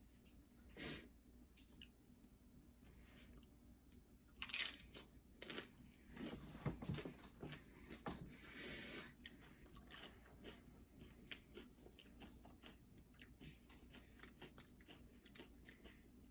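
A person chewing crunchy Doritos nachos close to the microphone: a loud crunching bite about four and a half seconds in, then more crunching and steady chewing with many small crackles.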